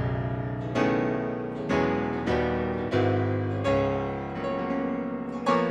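Sampled CFX Grand piano patch played from a keyboard: a series of full chords struck about once a second, each left to ring into the next. The velocity curve has been changed to give the sound more bite.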